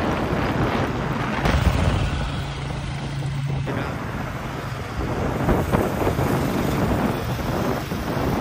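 Motor vehicle on the move: steady road and engine noise with wind on the microphone, a low engine hum standing out for about two seconds.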